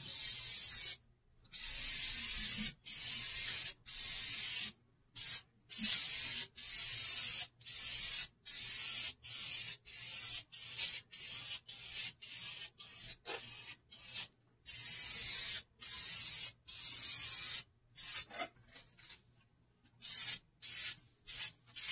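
Aerosol spray can of vinyl and fabric paint hissing in short passes, the nozzle pressed and released again and again, each hiss lasting a second or less and stopping sharply. The short, light passes lay a light coat of paint onto a vinyl car seat. Near the end the bursts grow shorter and more broken.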